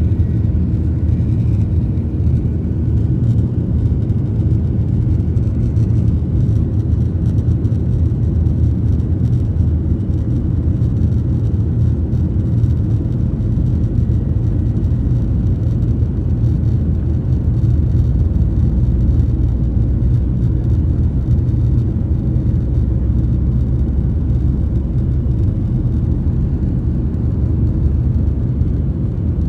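Cabin noise inside a Boeing 737-800 rolling along the runway: a steady low rumble from its CFM56 turbofan engines and the airframe, heard through the cabin.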